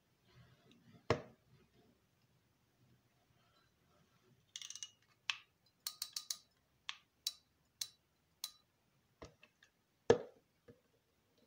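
Graphite-bodied Lineaeffe Vigor Power 6000 spinning reel being handled and worked, making sharp mechanical clicks and snaps. There is a loud snap about a second in and another near the end, with a run of quick, light clicks between them.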